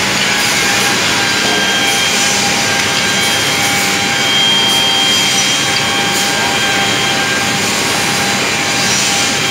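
Multi-head automatic wood drilling machine running, its electric drill heads boring holes in a wooden chair part: a loud, steady machine whir with a high whine running through it.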